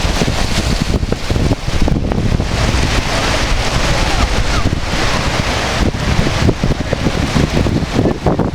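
Wind buffeting the microphone in uneven gusts over the steady rush of a creek in flood.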